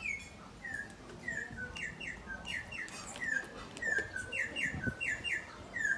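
Venezuelan troupial singing: a steady run of clear whistled notes, short falling slurs alternating with quick paired notes, about two a second.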